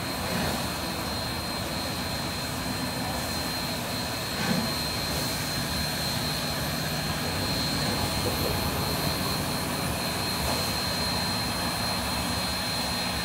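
Steam locomotive hissing steam and rumbling steadily as it creeps slowly forward, with a thin steady high-pitched tone underneath.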